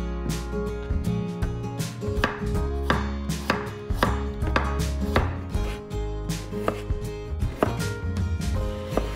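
Knife chopping vegetables on a wooden cutting board: a run of sharp, irregular strokes, about one or two a second, over background music.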